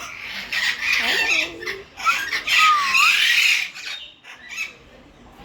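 Birds squawking in two harsh bouts of a second and a half each, the second with a short whistled glide, then falling quieter near the end.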